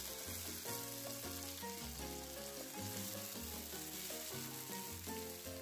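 Diced tomato and onion sizzling in hot oil in a frying pan, a steady hiss, with a soft background tune playing alongside.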